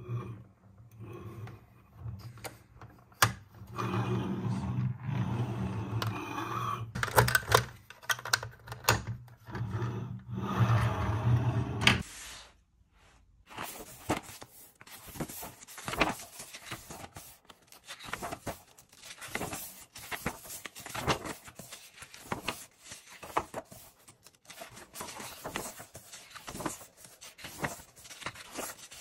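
Hands handling a plastic toy fire truck, with a louder stretch carrying a steady low hum for about eight seconds. Then, after a short gap, a run of paper rustling and soft taps as a sticker and activity book is handled and its pages turned.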